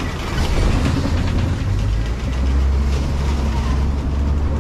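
Safari truck's engine running steadily as the open-sided vehicle drives along, a low hum that grows louder about two seconds in, with some clatter from the moving truck.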